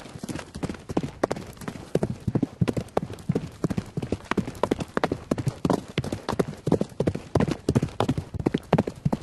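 Horse galloping: a rapid, uneven run of hoofbeats striking the ground.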